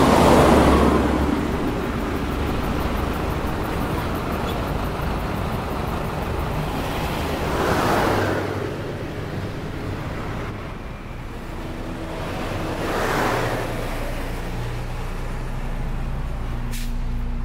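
Street traffic: cars passing in three swells, near the start, about eight seconds in and again about thirteen seconds in, over a steady low hum. A short sharp click near the end.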